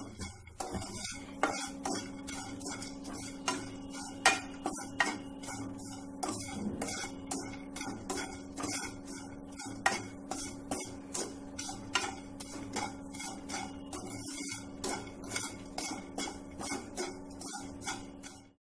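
Wooden spatula scraping and tapping against a nonstick frying pan as dry semolina and chopped nuts are stirred while they roast: a quick, irregular run of light clicks and scrapes. A steady low hum runs underneath, starting about a second and a half in.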